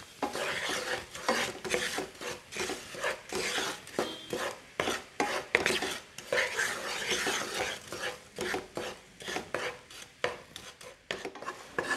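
Wooden spatula stirring melting jaggery syrup in a non-stick kadai, with irregular scraping strokes against the pan. The syrup is being cooked down toward the ball stage for sesame laddus.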